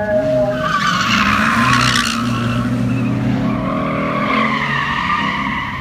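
A car drifting: its engine revs hard while the tyres squeal in a long skid. The squeal is loudest and roughest about one to two seconds in, then carries on as a steadier squeal that fades near the end.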